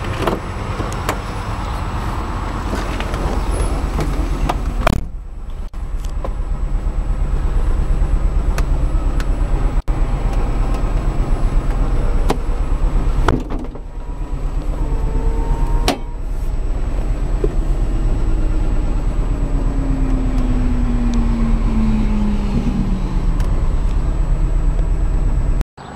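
Snyder ST600-C three-wheeled car's engine idling steadily, with a few sharp clicks and knocks about 5, 13 and 16 seconds in.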